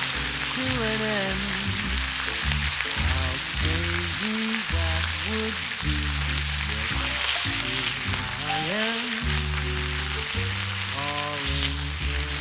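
Meat sizzling steadily on a hot iron griddle plate heated over a campfire, with background music playing throughout.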